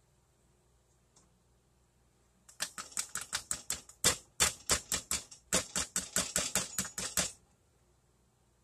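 A spatula knocking and scraping quickly against a baking pan of cake batter: a run of sharp clicks, about five a second, starting about two and a half seconds in, with a short pause midway and stopping about seven seconds in.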